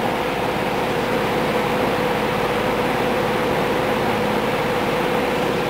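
Vintage all-metal Penneys-by-Lakewood 20-inch three-speed box fan running on its medium speed: a steady rush of air with an even hum.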